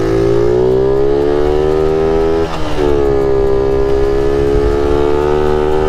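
1978 Honda Z50 Monkey's 49cc four-stroke single-cylinder engine revving under way, climbing in pitch. About two and a half seconds in, the revs drop sharply as it shifts up a gear, and then it pulls on steadily at lower revs.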